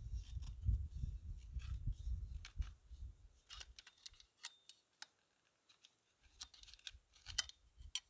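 Copper pipe being cut with a small rotary pipe cutter: light, irregular metallic clicks and scrapes as the cutter is turned and tightened around the pipe.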